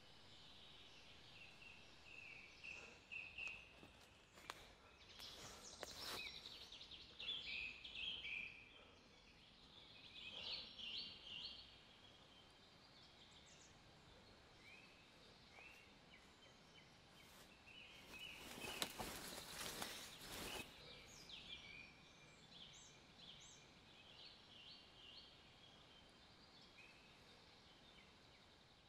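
Quiet woodland ambience with small birds chirping on and off. A noisy rustle breaks in briefly about five seconds in and more strongly for about two seconds around eighteen seconds in.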